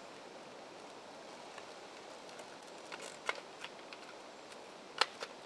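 Faint steady outdoor hiss with a few soft clicks and crackles as a small package holding a time-release scent capsule is handled and opened; the sharpest click comes near the end.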